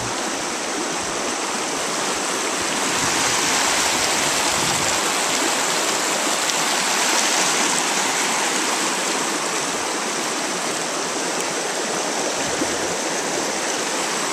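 Shallow river rushing over rocks in a riffle: a steady, even rush of moving water.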